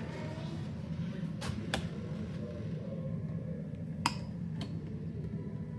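A handful of short, sharp clicks and taps from small hard objects being handled, over a steady low hum.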